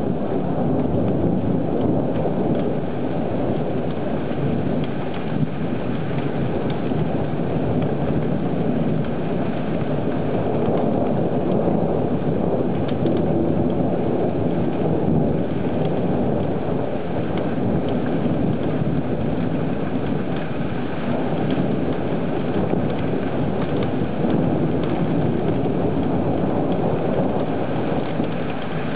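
Heavy thunderstorm rain falling steadily: a dense, even rush with a low rumble beneath it and scattered drop impacts.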